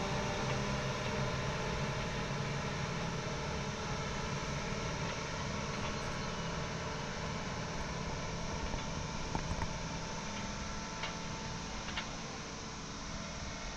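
Farm vehicle engine running steadily, a low droning hum with a constant hiss of road and mechanical noise, and a few faint ticks.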